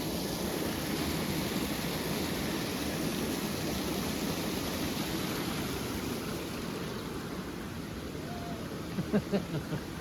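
Waterfall and stream rushing in a steady, even wash of water noise, with a few short sounds about nine seconds in.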